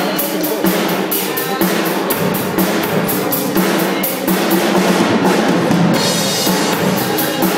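Drum kit played in a steady beat, cymbal strikes about four or five a second over bass drum and snare; the cymbal pattern breaks off briefly about five seconds in, then picks up again.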